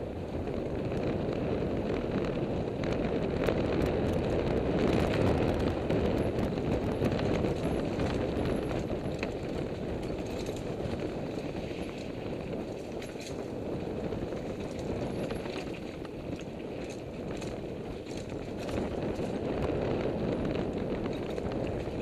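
Mountain bike riding down a dirt single track, heard from a helmet camera: wind rushing over the microphone with tyres rolling on dirt, and scattered clicks and knocks from the bike's chain and frame rattling over the bumps. Loudest a few seconds in.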